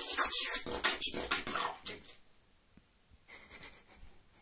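Vocal beatboxing: rapid mouth-made drum hits with hissing hi-hat sounds, which stop about two seconds in. A little over a second later comes a short breathy exhale.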